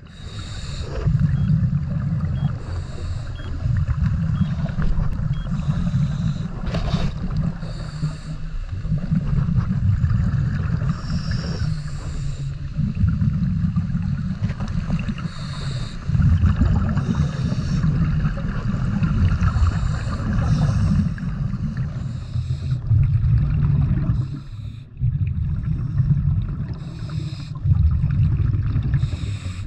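Scuba diver breathing through a regulator underwater. Short high hisses from each inhale alternate with longer low bursts of exhaled bubbles, about one breath every three seconds.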